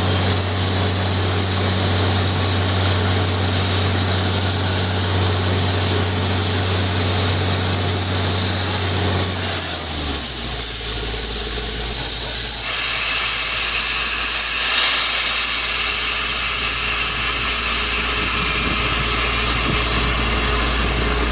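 Borewell drilling rig running steadily: a loud, high air hiss over an engine hum, and the hum drops in pitch about ten seconds in.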